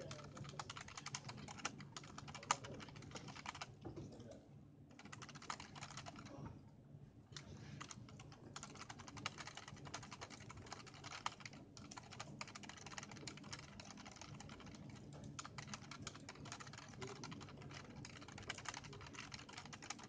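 Continuous typing on an i-Rocks Crystal USB keyboard (IK6): a dense, rapid stream of key clicks, with two brief pauses about four and seven seconds in.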